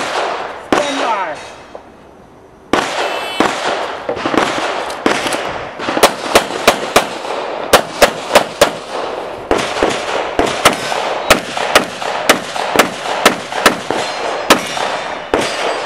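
Handgun shots fired in rapid strings during a practical pistol stage run: the firing starts about three seconds in, and from about six seconds on comes a quick series of sharp cracks, a couple dozen in all, broken by short pauses.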